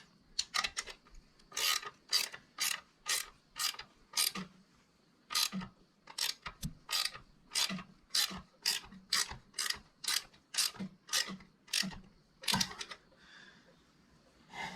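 Ratchet wrench clicking as a nut is tightened after being started by hand: a run of sharp ratcheting clicks, about two a second, with a few short pauses between strokes.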